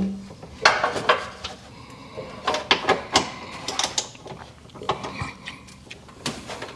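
Metal hand tools clicking and clanking in irregular knocks, as a ratchet and hex sockets work on bolts under the car.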